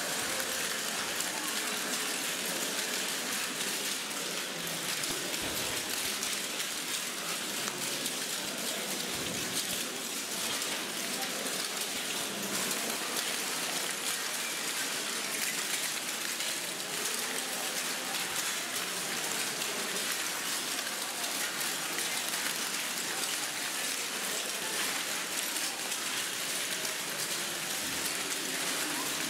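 Many feet walking over a floor covered in broken white ceramic shards: a dense, steady crackle and clink of shards shifting and grinding underfoot.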